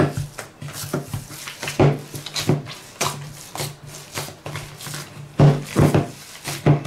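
Hands kneading and squeezing sticky date paste in a plastic bowl, giving irregular squishes and knocks several times a second over a faint steady low hum.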